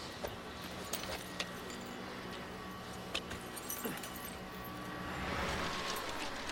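Scattered small metallic clicks and clinks from climbing-harness clips, over a low steady hum. A swell of rushing noise builds about five seconds in.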